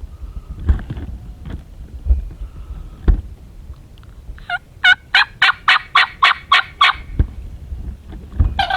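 Wild turkey calling: a run of about ten evenly spaced yelps, about four a second, then near the end a gobbler's gobble starts.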